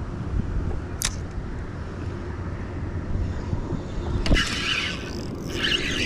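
Hooked catfish splashing at the water's surface in two rough stretches, from about four seconds in and again near the end, over a steady low rumble; a sharp click comes about a second in.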